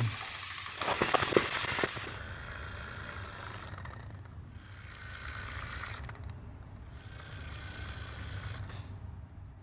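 Pull-string wind-up mechanism inside a plush Edward toy engine running down after the cord is released: a loud clicking rattle about a second in, then a steady low whir as the cord winds back in and the toy moves.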